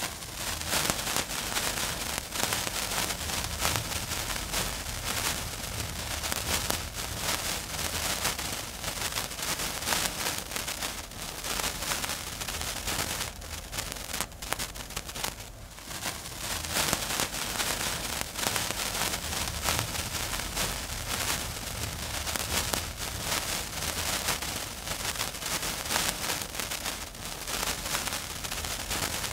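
Sound effect of a lit fuse burning: a continuous, dense sizzling crackle of many fine sparks.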